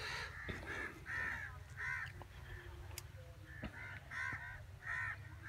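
Crows cawing repeatedly, a string of short harsh caws coming every half second to a second.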